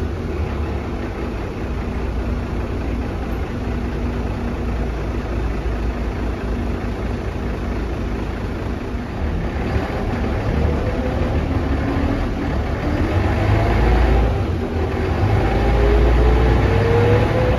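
Cabin sound of a 1999 Mercedes-Benz O405NH bus under way: a low engine drone with a drivetrain whine from its ZF gearbox and hub-reduction axle. The whine dips slightly at first, then rises steadily in pitch from about halfway as the bus gathers speed, and the whole sound grows louder near the end.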